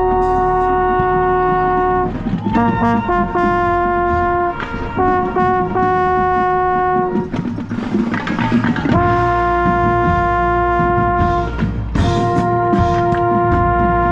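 Yamaha trombone played right at the microphone, with the marching band's brass around it. It holds a long note, plays a run of shorter notes, breaks off for a second or so just past the middle, then holds long notes again.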